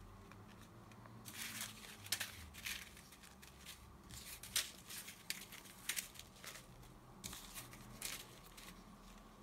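Faint crinkling of small plastic zip-lock bags full of square diamond-painting drills as they are handled and opened, with scattered short crackles and no steady sound.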